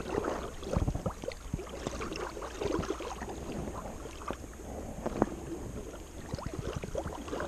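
Scattered small clicks and rustles of hands handling a channel catfish and working the hook out of its mouth, over a faint low rumble.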